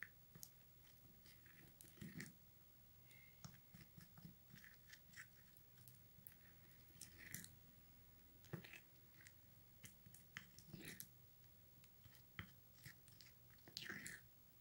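Faint, irregular wet squelching and scraping of a plastic spoon stirring a thick henna, coffee and egg paste in a small bowl, with light clicks where the spoon knocks the bowl's side.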